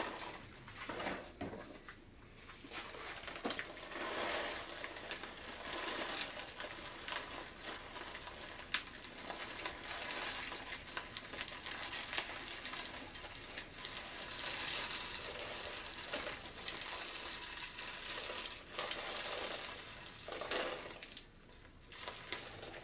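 Microcrystalline wax pellets trickling from a plastic bag into an empty tin can: a steady patter of small ticks against the metal, with the bag rustling. The patter eases off near the end.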